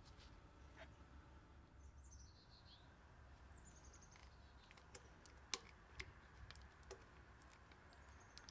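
Faint birds chirping in short descending trills, and a few light clicks and taps about halfway through as a silicone spatula scrapes yogurt from a glass bowl into a stainless steel bowl.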